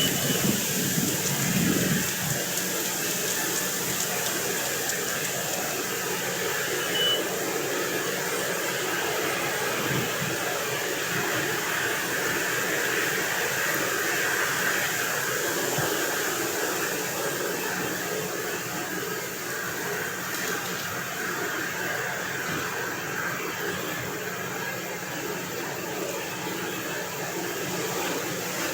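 Steady distant machinery noise from truck-mounted tree-cutting equipment, a hiss-like drone with no clear beat, mixed with wind on the microphone.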